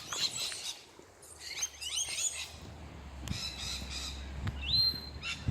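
Small songbirds singing in quick chirpy phrases, with one clear whistled note near the end that rises and then holds steady.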